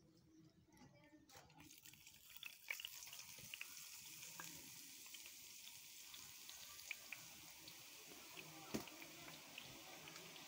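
Gram-flour batter dripping through a perforated ladle into hot oil in a kadhai, sizzling and crackling as boondi fry. The sizzle comes up about two seconds in and then holds steady, with a few sharp clicks over it.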